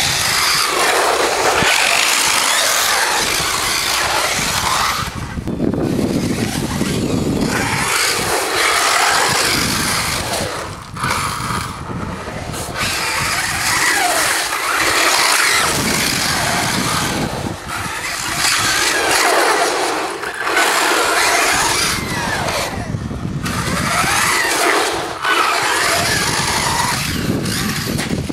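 Hobao Hyper 7 brushless RC buggy (Castle Mamba Max on 4S LiPo) driven hard on a dirt track: a motor whine rising and falling with the throttle, over the hiss of tyres throwing dirt and gravel. The sound swells and drops back several times as it makes repeated passes.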